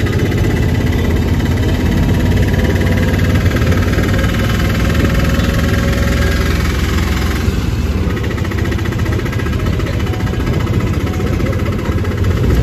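Auto-rickshaw engine running loudly and steadily as the three-wheeler drives along, heard from inside its open passenger cabin.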